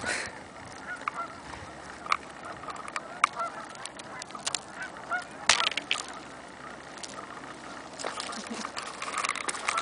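Geese honking in short scattered calls, with several sharp clicks mixed in.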